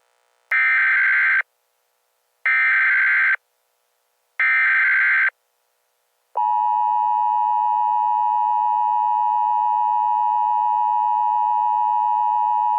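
Emergency Alert System header: three short, identical bursts of screeching digital data tones about a second apart. About six seconds in, a steady two-tone attention signal begins, the alarm tone that announces an emergency alert.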